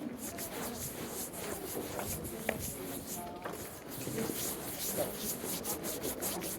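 Walking sounds: a run of short scuffing and rubbing noises from footsteps and the handheld recording device moving, with a few faint voices or chirps in the background.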